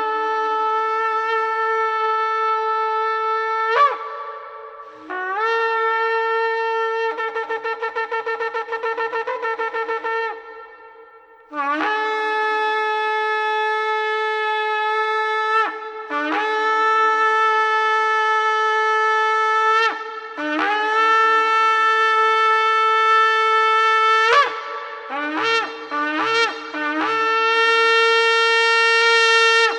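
Ram's-horn shofar blown in a series of long, held blasts, each opening with a quick upward slide into the note. One blast breaks into a rapid wavering stretch about a third of the way in, and a run of short, rising blasts comes near the end.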